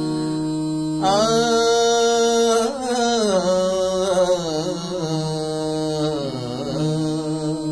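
A man singing over a steady keyboard drone: a long held note about a second in, then a wavering, ornamented melody that fades out near the end while the drone carries on.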